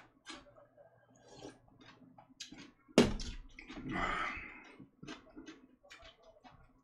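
Eating sounds: wet chewing and small mouth clicks, with one sharp knock about three seconds in and a short rustling swell just after.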